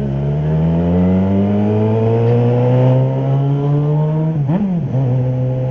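Yamaha XJ6's inline-four motorcycle engine under steady acceleration, its pitch climbing slowly for about four seconds. Near the end the pitch dips briefly and settles a little lower.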